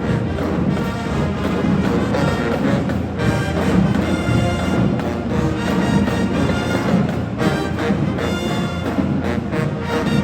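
HBCU-style marching band playing: brass section holding loud chords over bass drums and percussion.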